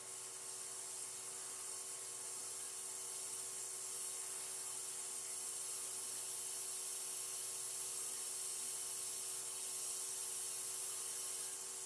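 MFJ-4275MV power supply running, giving a steady high-pitched hiss and whine over a faint hum, growing a little louder as its output voltage is turned up.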